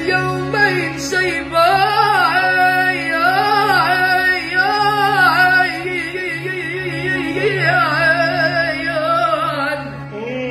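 A boy's strong voice singing a long, ornamented Arabic vocal line, the pitch wavering and turning continuously, with violin accompaniment.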